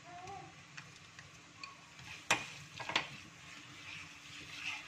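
Hot oil with annatto seeds sizzling faintly in a small pan as crushed garlic goes in and is stirred with chopsticks. Two sharp taps of the chopsticks on the pan, a little over two seconds in and about three seconds in.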